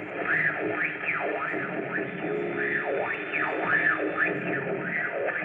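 The loudspeaker of a 1950s Gairadio valve radio giving out whistling tones that glide up and down in pitch about twice a second over a steady hiss: interference on a shortwave broadcast.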